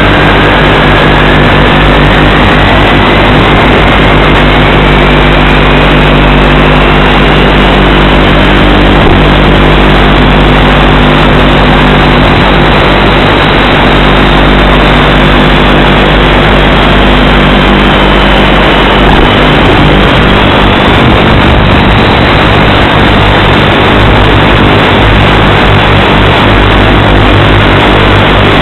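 Onboard audio of an FPV model plane in flight: a loud, steady rushing noise with a thin whining tone that climbs slowly over the first dozen seconds, dips briefly about two-thirds of the way through, then rises again.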